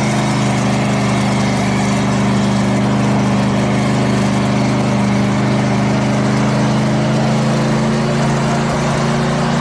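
ZIL-131 army truck's V8 petrol engine running at a steady, even speed with a constant low drone.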